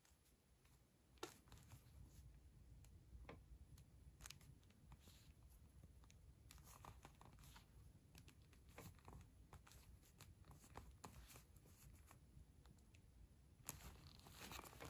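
Near silence with faint handling noise: a small metal tin turned over in gloved hands, making scattered light clicks and a brief rustle near the end.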